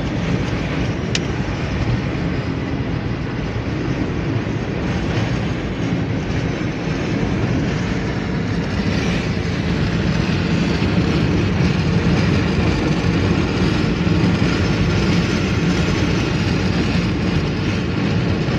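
Steady rumble of a car driving slowly on a highway through a very strong wind, with road noise and wind noise mixed together.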